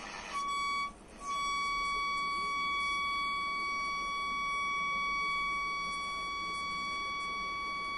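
Steady high test tone from a Braun Sporter valve radio's loudspeaker: the set is picking up and demodulating the tone-modulated signal of a radio-frequency generator held near it, showing that the receiver works. The tone starts just under half a second in, drops out briefly around one second, then holds steady.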